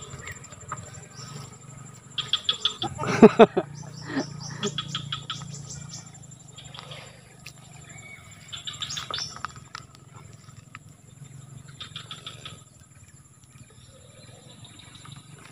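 Birds calling in repeated bursts of rapid chattering notes, with a louder call about three seconds in, over a steady high insect whine.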